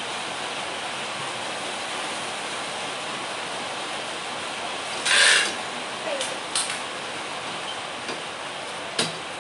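A door being shut: a short, loud scraping rush about five seconds in, then a few small clicks and one sharp click near the end, over a steady hiss.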